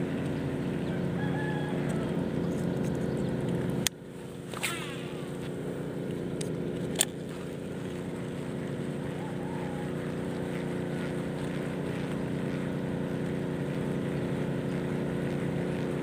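A steady low motor drone throughout. A sharp click comes about four seconds in, after which the drone drops and slowly builds back up, and another sharp click comes about seven seconds in.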